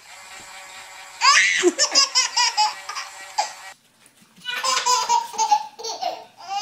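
A baby belly-laughing in quick, rapid bursts from about a second in. After a brief pause, a second baby laughs.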